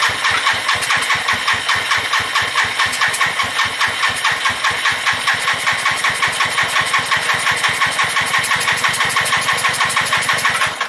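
Suzuki GN250's single-cylinder engine being cranked on the electric starter in a cold start after a year of sitting, with a steady rhythmic pulsing and no firing. The cranking stops suddenly without the engine catching.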